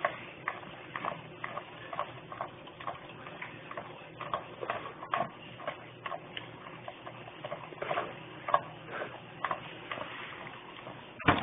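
A dog licking ice cream out of a plastic bowl: a steady run of wet licks and tongue clicks, about two or three a second, with one sharper knock near the end.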